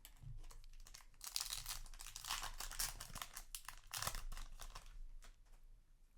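Foil wrapper of a Yu-Gi-Oh! booster pack crinkling and being torn open, a dense crackle that is loudest in the middle and dies down near the end.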